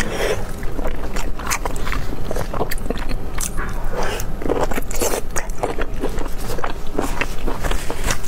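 Close-miked eating sounds: biting and chewing braised pork and sausage, with a dense, irregular run of wet smacks and sharp clicking crunches.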